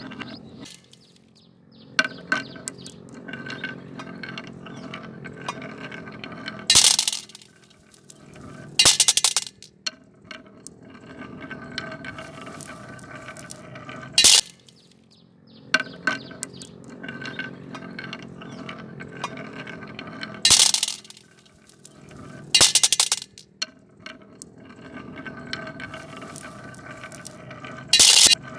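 Marbles rolling down wooden marble-run tracks, a steady rolling rumble broken by short, loud clattering clacks as they drop and strike the wooden pieces. The sequence of drops comes around twice.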